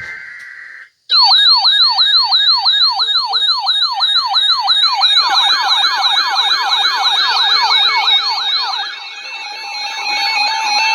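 Canadian emergency alert attention signal: a short steady high tone, a brief break, then a loud siren-like pattern of rapid falling sweeps, about three or four a second, under a wavering higher tone. About five seconds in, a second layer of sweeps and steady tones joins and the sound thickens. It signals a broadcast emergency alert, here a severe thunderstorm warning.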